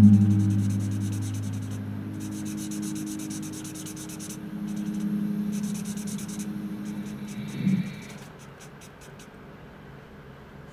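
Copic marker nib scratching on blending card in quick, repeated short strokes, in several spells. Under it, low sustained musical tones fade away and swell again in the middle.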